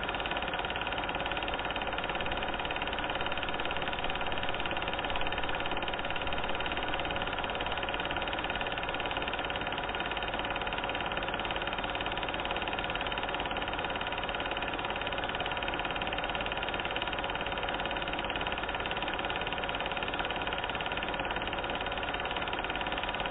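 A steady mechanical hum with many fixed tones and an even rush beneath, holding the same pitch and level throughout.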